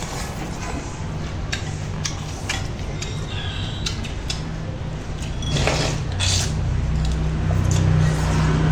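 Chopsticks and spoons clicking against ceramic soup bowls while people eat noodle soup, with a longer slurp a little past halfway. A steady low rumble underneath grows louder in the second half.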